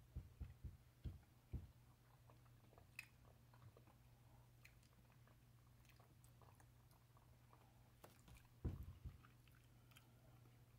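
An opossum chewing cat food, heard as a quick run of crunches in the first two seconds and another cluster about nine seconds in, over a faint steady low hum.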